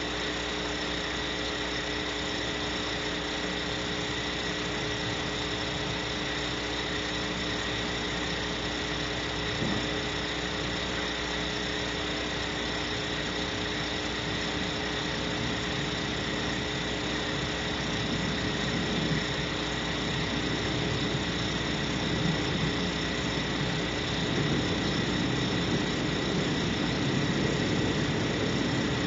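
Steady hiss with several constant electronic hum tones from a wildlife webcam's live audio feed, with a low rumble growing over the last third.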